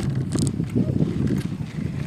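Strong wind buffeting the microphone as a steady, fluttering rumble, with a short hiss about a third of a second in.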